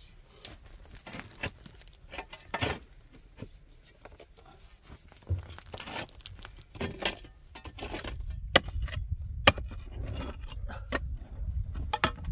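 Scattered light knocks, clicks and scrapes. From about eight seconds in, a steady low rumble joins them, along with two sharp clicks.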